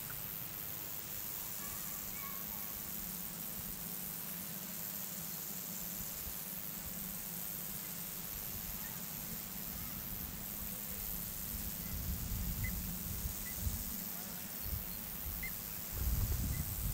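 Steady outdoor background noise with a low hum and a faint high hiss, and a few faint, short chirps; low rumbling thumps near the end.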